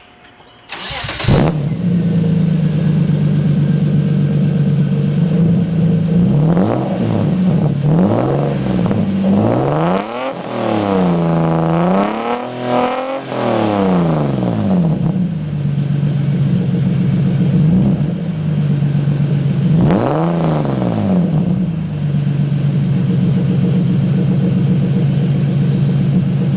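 BMW E36 M3 straight-six breathing through a custom 3-inch stainless steel exhaust with a Burns Stainless muffler. It starts up about a second in and idles steadily. It is blipped through a string of revs with a longer hold in the middle, then idles again, with one more rev blip later.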